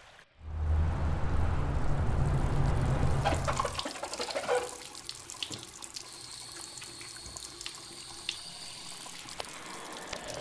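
Bathroom sink faucet running, with a low rumble for the first few seconds. Then a cartridge razor is rinsed under the stream, with small clicks and taps against the sink.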